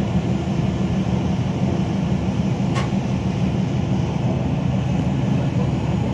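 Train running along the track: a steady low rumble of the moving train, with one short, sharp click about three seconds in.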